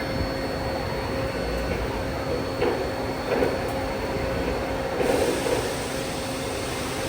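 Steady mechanical hum and noise with faint sustained tones, broken by a few brief squeaks or scrapes, about three seconds in and again a little after five seconds.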